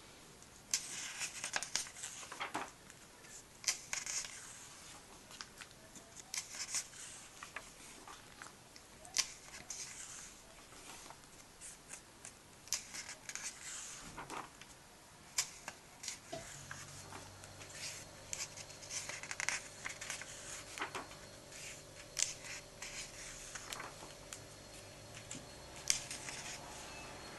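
Comic book pages being turned one after another: repeated paper swishes and sharp flicks as each glossy page is lifted and laid down. A faint steady hum comes in just past halfway.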